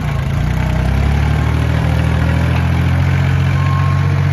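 Farm tractor engine running steadily, growing a little louder about a second in.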